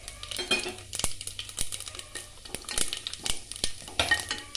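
Whole spices (fennel seeds, cardamom, cloves, cinnamon) crackling in hot ghee and oil in a stainless steel pressure cooker, with scattered clicks as a wooden spoon stirs them against the pot.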